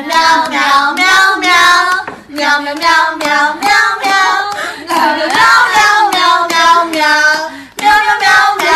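High-pitched singing voice, loud, in sung phrases with brief breaks about two seconds in and near the end.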